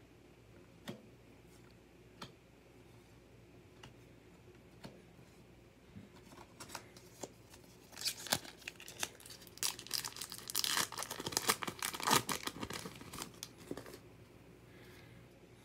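A few light clicks of trading cards being handled over the first several seconds, then, from about eight seconds in, a trading-card pack's wrapper being torn open and crinkled for several seconds.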